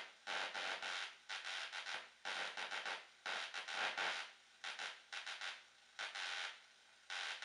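Spark-gap transmitter picked up on an AM radio tuned to static: the radio's speaker gives short bursts of static-like noise, about one a second, as the transmitter key is pressed and released, with faint hiss between them.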